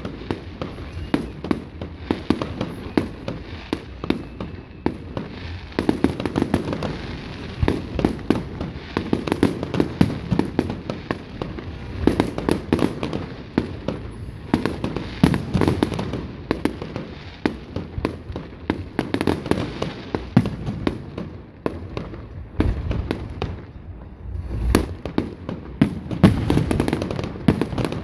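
Fireworks display: rapid, overlapping bangs and crackling from bursting shells, with one heavier, deeper bang near the end.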